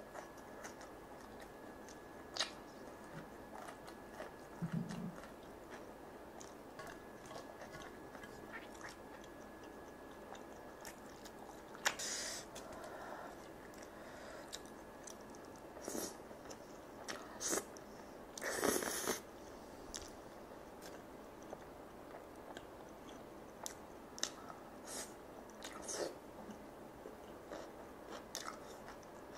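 Close-miked mukbang eating: chewing and mouth smacking on saucy ramen noodles, with light scattered clicks and a few louder wet mouthfuls in the middle.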